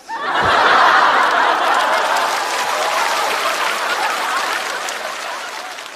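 Studio audience applauding and laughing in response to a comedian's punchline; the applause swells right away, is loudest about a second in, then slowly dies down.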